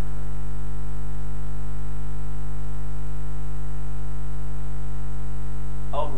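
Loud, steady electrical mains hum in the sound system: a low drone with a stack of steady higher tones, unchanging throughout. Right at the end a man's voice begins to chant.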